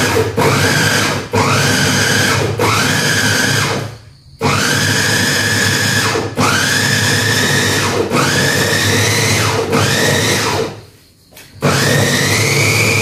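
Cheap electric food chopper chopping corn kernels, run in about eight short pulses of a second or two each; at the start of every pulse its motor whine rises as it spins up, then cuts off briefly before the next.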